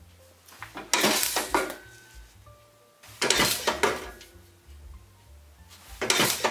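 Pexto foot-operated treadle shear cutting brass sheet: three cuts, each a loud metallic clatter of the blade coming down and the treadle springing back, about two and a half seconds apart.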